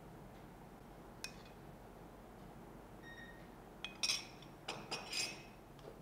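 A metal spoon tapping and clinking against glass bowls: one light tap about a second in, a faint glass ring near the middle, then a quick cluster of clinks in the second half.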